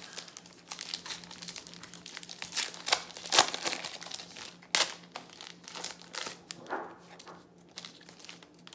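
Baseball card pack wrappers being torn open and crinkled by hand: irregular crackling with a few sharper rips, the loudest about three and a half and five seconds in.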